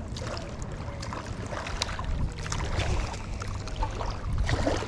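Wind rumbling on the microphone over the wash of shoreline water, with a few light clicks scattered through.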